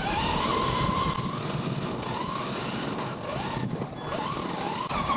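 Electric motor of a radio-controlled car whining as it drives, its pitch rising and falling with the throttle, over a steady rushing noise.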